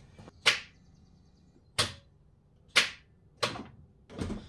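Starter motor solenoid on an R53 Mini Cooper S clicking sharply five times, about a second apart, as the key is turned, with no cranking or engine starting. This is the click-but-no-crank fault that the owner ends up suspecting is in the EWS immobiliser circuit.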